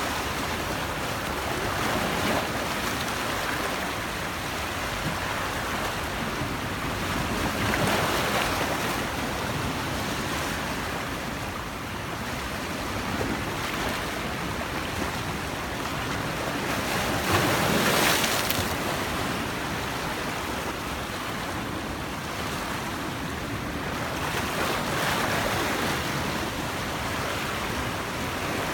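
Sea waves breaking on the shore: a continuous wash of surf that swells every few seconds as waves break, with some wind on the microphone.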